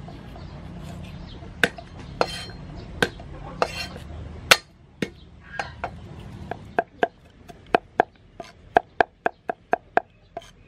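Cleaver chopping garlic on a thick wooden chopping board. A few separate sharp knocks come first, then a fast run of chops, about three or four a second, in the second half.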